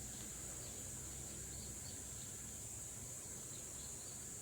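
Steady high-pitched chirring of insects, unbroken throughout, over a faint low background rumble.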